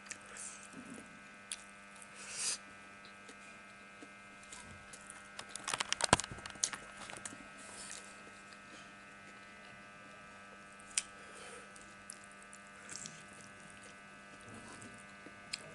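Eating sounds of a person eating rice by hand from a steel plate: scattered soft clicks and mouth noises, with a louder cluster of clicks about six seconds in, over a steady electrical hum.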